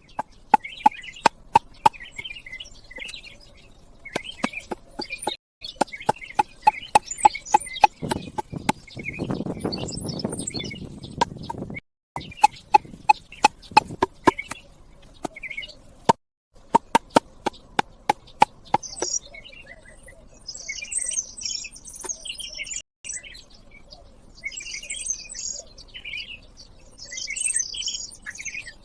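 Birds chirping, with a run of sharp, rapid knocks that each ring briefly at the same pitch, like tool blows, over the first two-thirds. A rough scraping noise comes in about eight seconds in and lasts some four seconds. After that only the birds are left.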